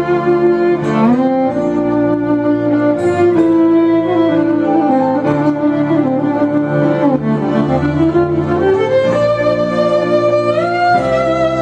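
Violin playing a slow melody of long bowed notes with occasional slides between pitches, over a sustained low accompaniment.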